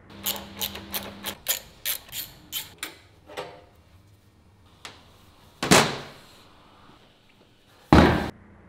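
Workshop clatter of metal motorcycle exhaust parts being handled: a quick run of about ten clicks and knocks, then two heavy metal clanks a couple of seconds apart as the exhaust is set down on the wooden bench. The second clank cuts off suddenly.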